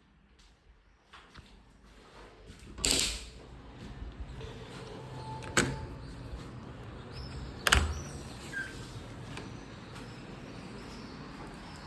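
A PVC window being worked: a short rubbing slide about three seconds in, then two sharp clicks about two seconds apart, like the sash and its hardware being closed and latched.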